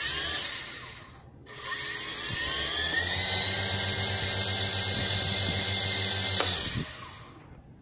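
V-Max HX708 toy RC helicopter's electric motors and rotor blades run up on the throttle while the helicopter is held down in the hand. A short burst fades away about a second in. Then a rising whine spins up to a steady high-pitched buzz and winds down near the end.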